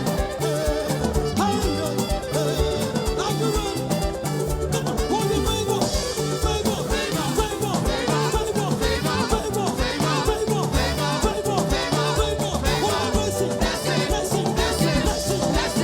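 Live gospel band music with a steady, fast beat and a pulsing bass line.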